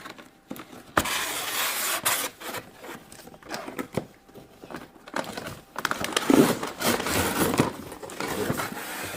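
A cardboard box being opened and handled, with its packaging scraping, rustling and crinkling, and sharp clicks and knocks now and then.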